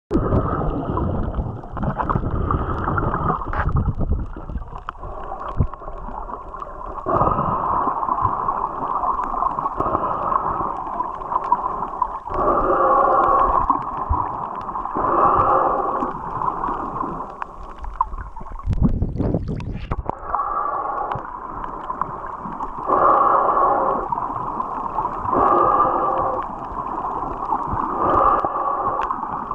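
Muffled underwater sound picked up by a camera in a waterproof housing: water rushing and rumbling around it as the swimmer moves, with recurring muffled bursts every couple of seconds and a stronger low rumble about two-thirds of the way through.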